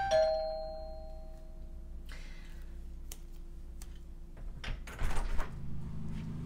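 Two-tone doorbell chime, its lower second note ringing out for about two seconds. A few light taps and steps follow, then a cluster of clicks from the doorknob and latch as a front door is opened, about five seconds in.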